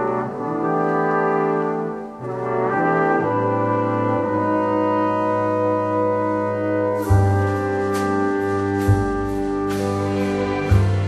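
Orchestral jazz ballad: a brass section led by trombones and trumpets plays sustained chords over strings. About seven seconds in, a drum kit with cymbals and a bass line come in.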